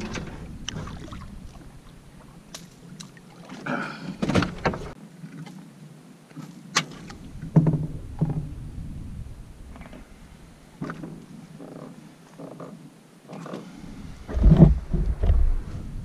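Scattered knocks, clicks and heavier thumps in a small fishing boat as a hooked catfish is brought in. The loudest thumps come near the end.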